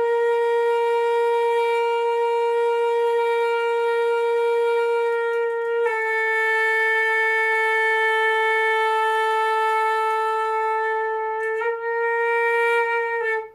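Concert flute playing long tones: one steady note held for about six seconds, then a slightly lower note held for about six seconds, then back up to the first pitch briefly near the end.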